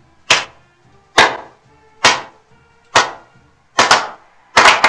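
A few people's slow hand claps, about one a second, speeding up near the end.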